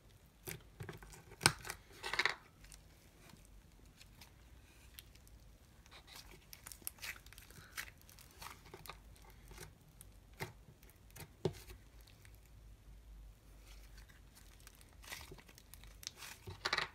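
Soft pink fluffy slime being squished, kneaded and pulled by hand: faint, scattered short clicks and brief sticky noises, the loudest about one and a half and two seconds in.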